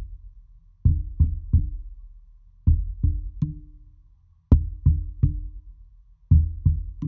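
Pine tree trunk knocked in four groups of three, heard through a piezo contact microphone strapped to the bark. Each knock is a deep thud followed by a short ringing tone.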